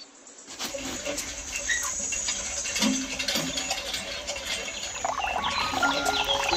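A thin stream of water from a miniature hand pump pattering into a small plastic tub, with scattered small clicks and a few faint chirps. It starts about half a second in and grows a little louder over the first couple of seconds.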